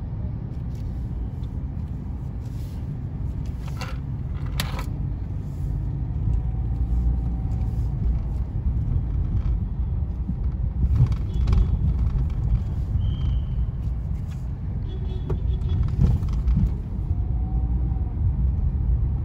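Low, steady rumble of a car's engine and tyres heard from inside the cabin as it drives slowly, with a couple of sharp clicks about four to five seconds in and a few light knocks later.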